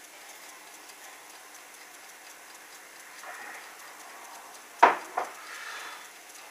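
A glass beer mug being set down on a table: two sharp knocks in quick succession, about five seconds in.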